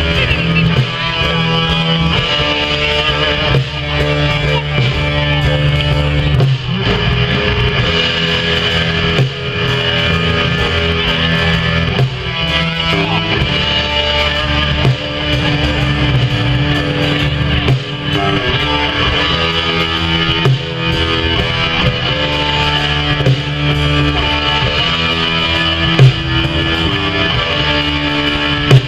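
Live rock band playing an instrumental passage: electric guitar to the fore over bass and drums, with no singing.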